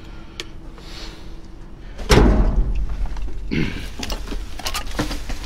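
A loud thump inside a metal dumpster about two seconds in, followed by scattered knocks and rustling of trash being handled.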